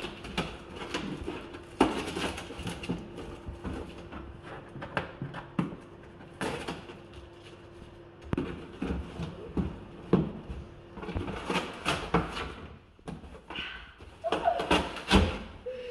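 A taped cardboard box being opened by hand: irregular knocks and handling clicks, with a few longer tearing rips as the packing tape comes away and the flaps are pulled open.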